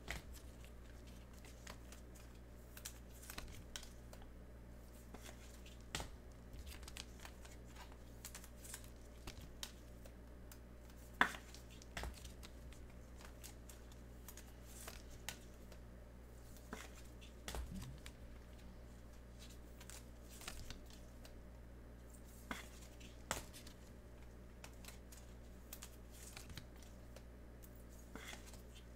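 Faint, scattered rustles, crinkles and clicks of Prizm basketball trading cards and their pack wrappers being handled, with one sharper click about eleven seconds in. A low steady hum runs underneath.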